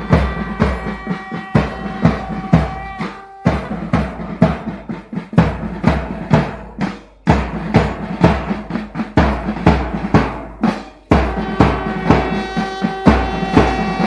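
Marching-band drums: big bass drums and snare drums beating a steady march rhythm, with long held tones from another instrument over them near the start and again near the end.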